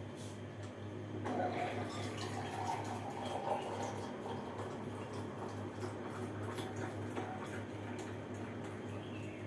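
Liquid trickling and dripping into a container, starting about a second in and loudest over the next few seconds, over a steady low hum.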